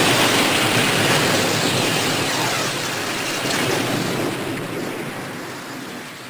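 Ultraman Cosmos transformation sound effect: a loud rushing noise that slowly fades away.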